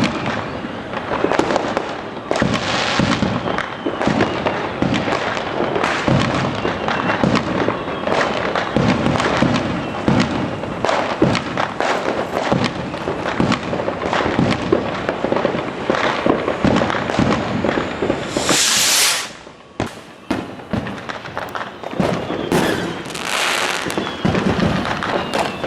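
Fireworks going off in a dense barrage of rapid cracks and bangs. Two loud hissing rushes cut through, one about three-quarters of the way in and another near the end.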